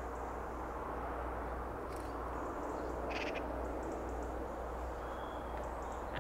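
Outdoor ambience: a steady background rumble and hiss with a few short, high bird calls, the clearest about three seconds in.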